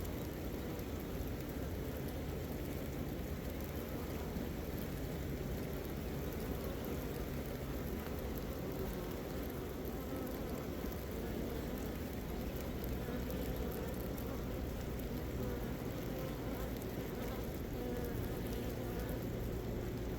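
A mass of honeybees buzzing steadily, stirred up and flying during a nuc-to-hive transfer.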